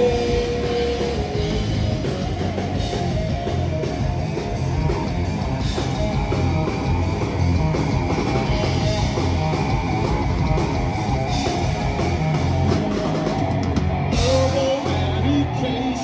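Live rock band playing: distorted electric guitars, bass guitar and drum kit, with a sung vocal line holding long notes near the start and again near the end.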